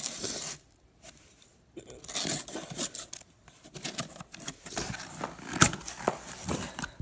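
Utility knife slicing through clear packing tape along a cardboard box's seams: a run of irregular rasping scrapes and rips after a short quiet start, with a sharp click near the end as the loudest moment.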